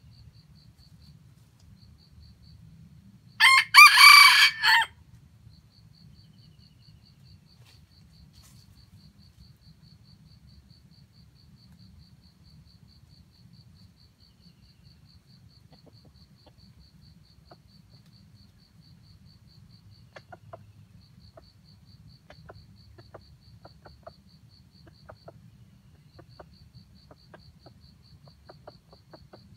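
Red junglefowl rooster crowing once, a short crow of about a second and a half, a few seconds in. Under it runs an insect's rapid, even ticking.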